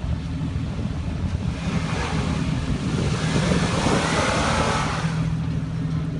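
Four-wheel-drive vehicle engine running steadily, swelling for about four seconds in the middle with a loud rushing noise as it revs hard.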